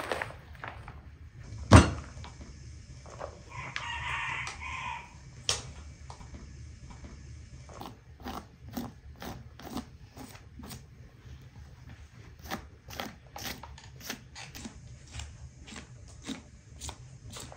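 A rooster crows once, a call about a second and a half long, roughly three and a half seconds in. A sharp knock comes just before it, and many small wet clicks and ticks run throughout as membrane is peeled and cut from a raw lamb carcass by hand.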